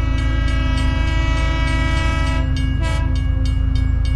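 Background music: held chords over a heavy bass, the chord changing about two and a half seconds in.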